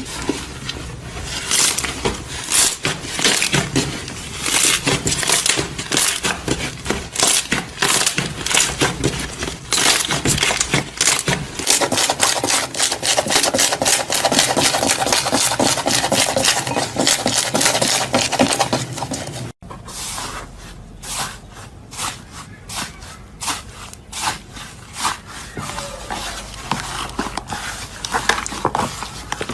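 Slime being squeezed and pressed by hand, giving a dense run of small crackles, clicks and pops. About two-thirds of the way through the sound cuts to a quieter, sparser stretch of crackling.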